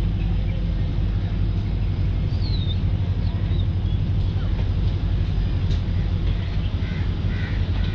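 Diesel train's engine running with a steady low hum, with a few faint high chirps above it.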